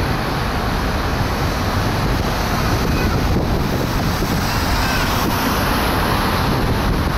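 Wind rumbling on the microphone over steady city street traffic noise, swelling briefly as a car drives past.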